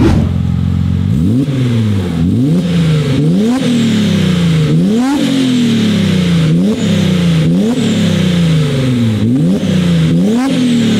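Audi RS4's tuned twin-turbo V6 idles briefly, then is revved in repeated quick blips. Each time the pitch snaps up and sinks back slowly, about eight times.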